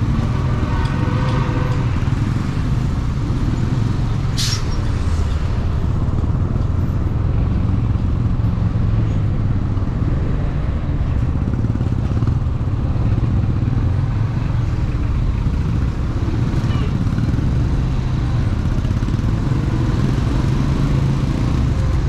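AKT NKD 125 motorcycle's small single-cylinder engine running steadily under way, with constant low road and engine rumble. There is a brief higher pitched tone in the first two seconds and a short sharp hiss about four seconds in.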